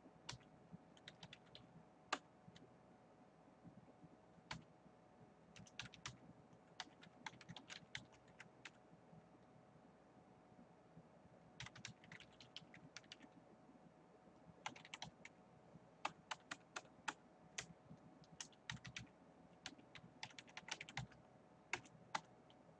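Faint typing on a computer keyboard: short runs of quick keystrokes with pauses between them, the busiest stretch in the second half.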